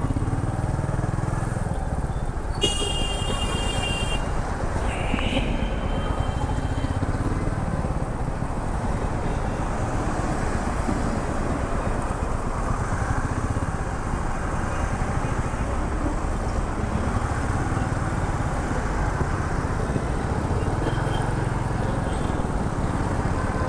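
Royal Enfield Meteor 350's single-cylinder engine idling steadily in stopped traffic, with traffic noise around it. A vehicle horn honks for about a second and a half roughly three seconds in, and a shorter honk follows around five seconds in.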